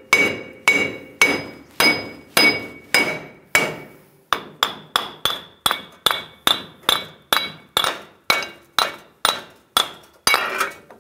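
Small sledgehammer striking a Ram 1500's front wheel hub and bearing assembly to drive it out of the steering knuckle, where it is stuck. Sharp metal-on-metal blows with a ringing note, about two a second, then after a brief pause about midway, a faster run of blows with a higher-pitched ring.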